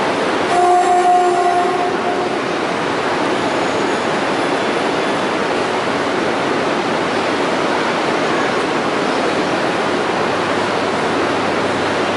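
E3 series Shinkansen set pulling slowly into the platform to couple with a waiting E2 series set, a steady rumble of running and wheel noise. A short, steady horn-like tone sounds about half a second in and lasts under two seconds.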